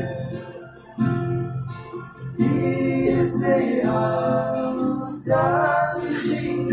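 Acoustic guitar strummed while a man sings along.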